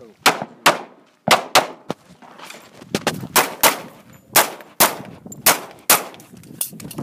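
Pistol shots fired in quick pairs, about a dozen sharp cracks in all, each with a short echo trailing off.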